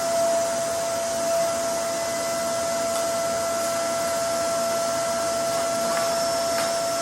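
A small motor running with a steady, even whine over a hissing noise.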